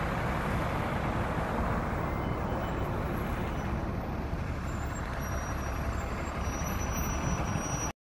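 Wind buffeting the microphone in a low, steady rumble over the noise of heavy road traffic.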